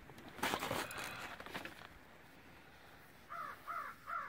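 A crow cawing three times in quick succession near the end, after a short rustle of handling noise in the first couple of seconds.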